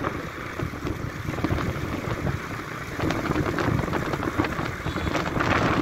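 Wind buffeting the microphone over the steady road noise of a vehicle travelling at highway speed.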